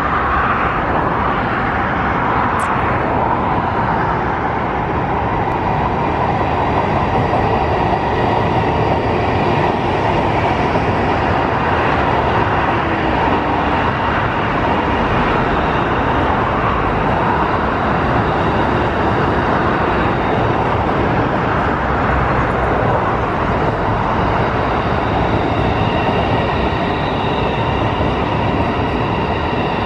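CR400AF-A Fuxing Hao high-speed electric multiple unit running past at low speed as it pulls into a station: a steady rumble of wheels and running gear with faint steady tones above it.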